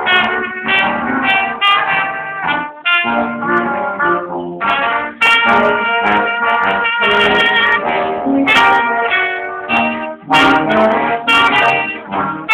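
Small brass ensemble of trumpets and a trombone playing a piece together in phrases broken by short pauses.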